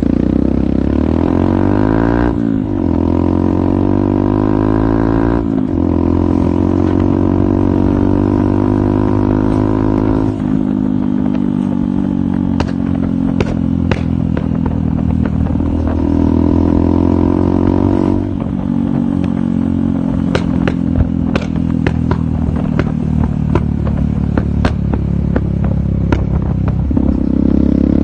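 Yamaha XT125X single-cylinder four-stroke engine running through an aftermarket Akrapovic exhaust, its pitch rising and falling several times as the revs change. Sharp clicks and ticks come through in the second half.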